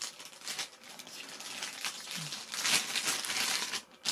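Clear plastic bag crinkling and crackling as it is handled, loudest from about two and a half seconds in.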